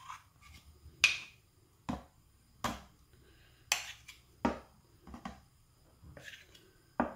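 A large spoon knocking and clicking against a ceramic mug and steel pot as thick batter is scooped and poured: about eight sharp taps at irregular spacing, roughly one a second, the loudest about a second in.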